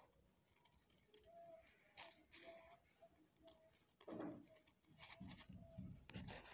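Small scissors snipping through a paper template and glitter foam sheet: a few faint, scattered cuts, with soft rustling as the sheet is handled near the end.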